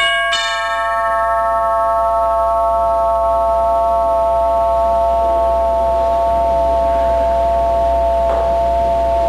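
Intro music: a synthesizer chord struck once and held steadily, its bright upper overtones fading in the first second or two, over a low steady hum.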